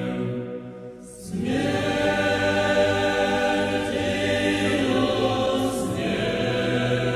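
Orthodox church choir singing long held chords with no audible words. About a second in the sound dips briefly, then a new, fuller chord swells in and is held, shifting once more near the end.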